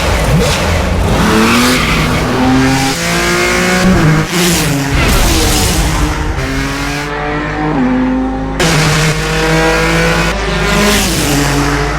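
Ford GT race car engine accelerating hard through the gears. Its pitch climbs and then drops back at each upshift, several times in a row.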